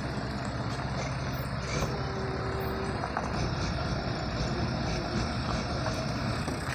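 Engine of a parked emergency vehicle idling with a steady low hum.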